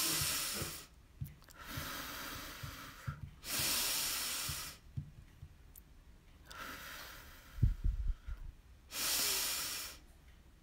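A woman doing a slow, deliberate breathing exercise close to the microphone: long, loud, airy exhalations alternating with softer, longer inhalations, three breaths out and two in. A few low bumps come between the second in-breath and the last out-breath.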